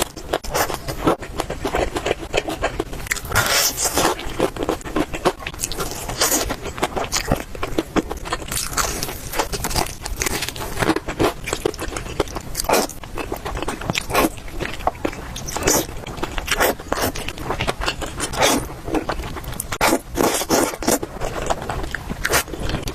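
A person eating close to the microphone, chewing and biting food with a constant stream of quick wet clicks and crunchy smacks.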